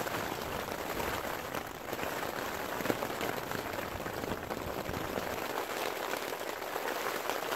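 Heavy rain falling on the tent's fabric, heard from inside the tent: a steady dense hiss of drops with many small ticks.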